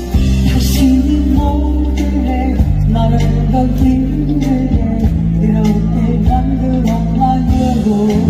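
A woman singing a Korean pop song live into a handheld microphone over an amplified backing track with long held bass notes.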